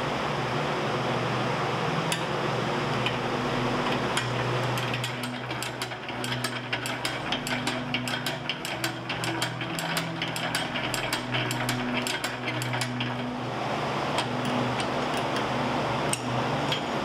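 Antique geared drill press running, its bit drilling through a thin metal plate. Rapid fine clicking from the gears and bit sets in about four seconds in and stops near 13 seconds, over a steady noise in the background.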